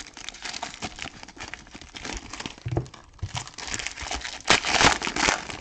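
Trading-card pack wrappers crinkling and tearing as packs are opened and the cards are handled, with a louder burst of crinkling near the end.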